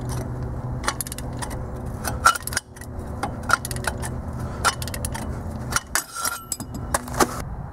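Irregular metallic clicks and clinks of hand tools: a ball-joint separator's screw being forced round with a wrench and extension bar on a stubborn steering joint.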